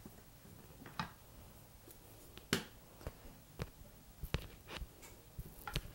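Irregular light knocks and taps from hands handling fondant pieces and a metal rolling pin on a work mat, about half a dozen scattered through, the sharpest a little past the middle and near the end.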